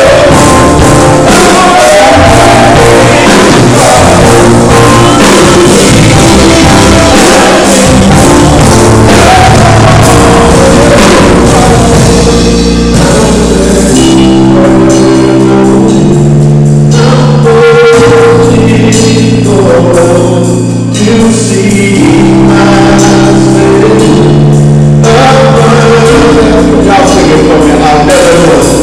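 Live gospel worship music, recorded very loud: a small group of men singing in harmony over electric keyboard accompaniment, moving into long held chords about halfway through.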